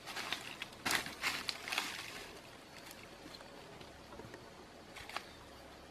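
Dry leaf litter and twigs rustling and crackling as a decayed log is grabbed and shifted on the forest floor, a dense run of crackles in the first two seconds, then quieter, with a single sharp snap near the end.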